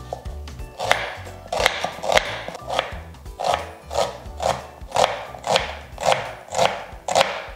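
Small kitchen knife dicing an onion on a wooden cutting board, about two chopping strokes a second, over quiet background music.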